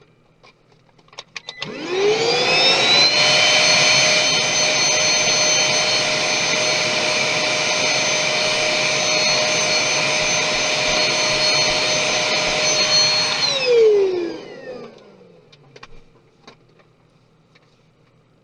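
A small high-speed electric fan motor, of the kind in a handheld vacuum or electric air blower, is switched on about two seconds in. It spins up with a rising whine, runs steadily and loudly with a rushing air noise for about eleven seconds, then winds down with a falling whine after it is switched off. A few light clicks come just before it starts.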